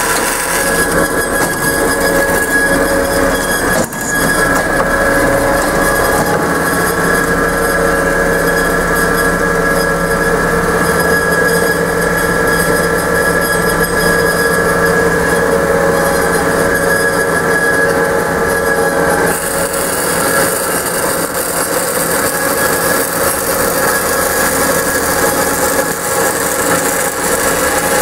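Amada 10-inch horizontal automatic band saw running: a steady mechanical drone with several held tones. The sound dips briefly about four seconds in, and the high hiss thins out about two-thirds of the way through.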